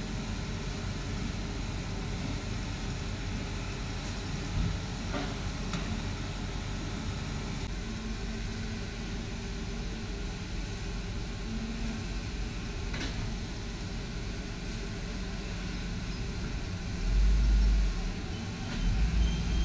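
Steady rumble of heavy machinery: an excavator's diesel engine running as it digs and loads sand into dump trucks, with a few faint knocks and a couple of deep low thumps near the end.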